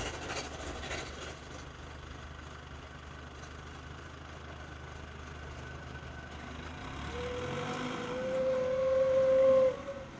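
Steam locomotive running with a low rumble, then one long blast of its steam whistle starting about seven seconds in, growing louder before it cuts off sharply.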